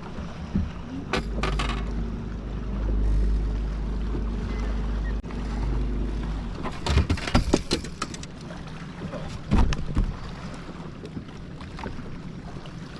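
Wind buffeting the microphone in a low rumble on an open bass boat, over a faint wash of water. A cluster of sharp knocks comes about seven seconds in and another near ten seconds.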